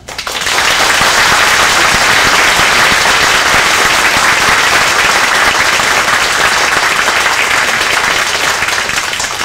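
Audience applauding, starting suddenly, then holding loud and steady and easing off slightly near the end.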